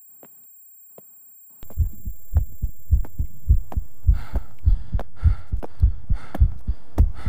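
Heartbeat sound effect: near silence with two faint clicks, then about a second and a half in a steady low double thump starts, about one and a half beats a second, with a faint hum underneath.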